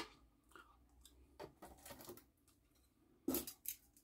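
Faint rustling and scraping of a sheet of paper and a small craft piece being handled while excess glitter powder is tipped off, with a short run of light clicks and taps a little over three seconds in.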